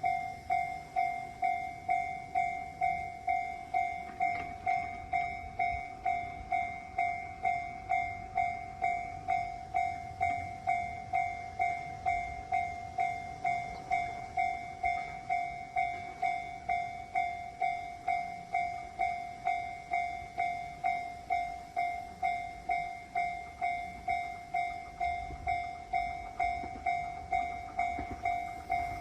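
Japanese railroad crossing warning bell ringing its steady "kan-kan" alarm, one clear tone struck evenly just under twice a second, each strike fading before the next. The alarm signals that a train is approaching and the crossing is closed.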